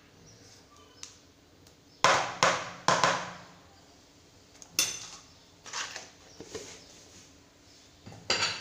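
Metal spoon knocking against a mixing bowl and whisk to shake off soft butter. Three sharp knocks come about two seconds in, then a few lighter taps and one more sharp knock near the end.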